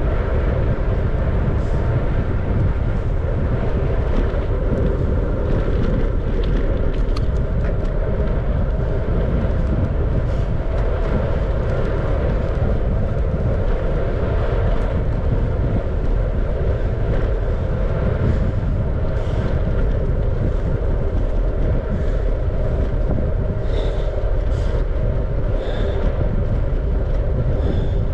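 Steady rumble of wind on the microphone mixed with the tyre and road noise of a bicycle being ridden.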